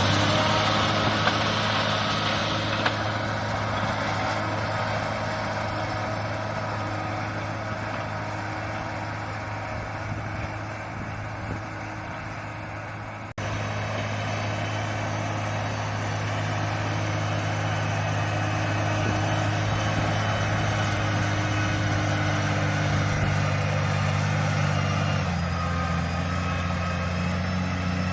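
Case Maxxum 140 tractor engine running steadily while driving a Maschio Gaspardo Falco rotary tiller, with a thin high whine over the engine hum. The sound cuts out for an instant about halfway through, and the engine note shifts slightly near the end.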